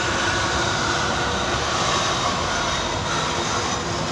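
Modern low-floor tram of Alexandria's Ramleh line approaching along the track, a steady rolling noise of its wheels on the rails.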